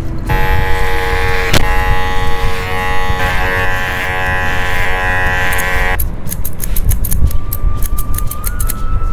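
Electric hair clippers buzzing steadily for about six seconds, then switching off. After that come quick, regular snips of scissors cutting hair.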